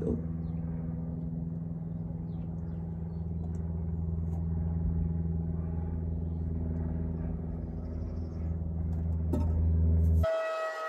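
A steady, low, engine-like hum with a few evenly spaced tones. It slowly grows louder and cuts off suddenly near the end.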